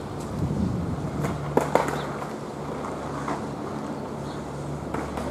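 Outdoor city ambience by a construction site: a steady low rumble with an on-and-off engine-like hum, and a few sharp knocks or clanks about one and a half seconds in and again near the end.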